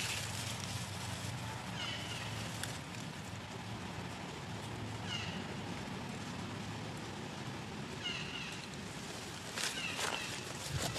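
Baby long-tailed macaque giving short, high-pitched squeaking cries, about four of them a few seconds apart, with a few sharp clicks near the end.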